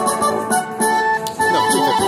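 Lightning Link Tiki Fire slot machine playing its win-rollup tune, a busy jingle of pitched chimes and plucked notes over a quick, regular tinkling beat, while the win meter counts up a bonus payout.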